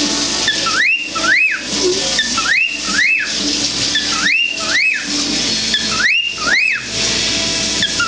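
Male cockatiel repeating a two-note wolf whistle, each note a quick rise and fall, in pairs about every second and a half to two seconds, about four times. It is the male's courtship whistling, here aimed at a dish towel.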